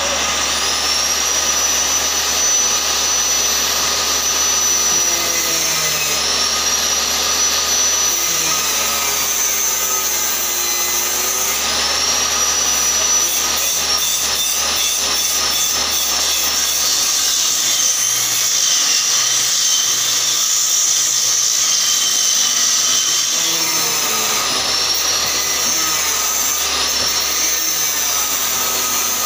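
Table saw running and ripping boards into strips. Its high whine drops in pitch as each cut loads the blade and rises back when it is through, several times.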